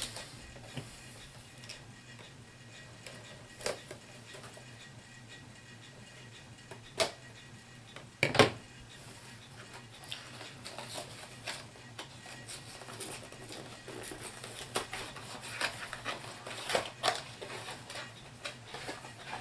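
Handling of a HeroClix booster pack: a few sharp clicks and knocks of plastic miniatures and packaging, then from about halfway a busier run of small clicks and crinkling as the pack is opened and the figures are sorted.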